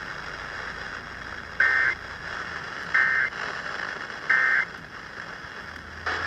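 Emergency Alert System SAME data bursts: three short, loud, warbling two-tone digital bursts about a second and a bit apart, over a steady hiss. Their shortness and place at the close of the alert mark them as the End of Message code that ends the warning.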